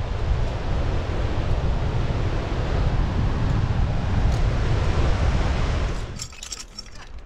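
Wind buffeting an action camera's microphone: a loud, steady rush heaviest in the low end. About six seconds in it drops away, leaving a few sharp clicks.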